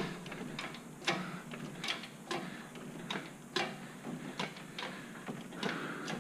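Hydraulic engine hoist (a 2-ton cherry picker) being pumped to lift a 6.0 Powerstroke diesel engine on its chain: a run of sharp metallic clicks and clanks, about two a second and uneven in strength.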